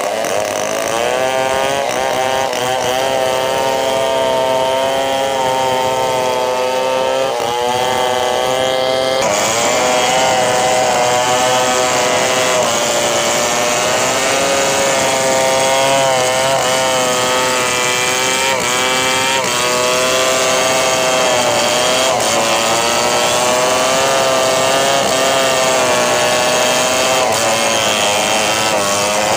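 Stihl 070 two-stroke chainsaw running at full throttle while cutting through a large bengkirai hardwood log. Its engine pitch wavers up and down as the chain loads in the wood.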